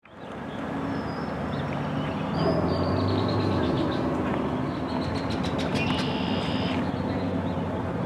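Steady outdoor ambience of distant traffic rumble that fades in over the first second, with a few faint high bird chirps and light clicks over it.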